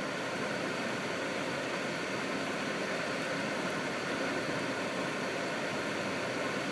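A car driving on snow-covered roads: a steady, even rush of tyre, wind and engine noise with no changes.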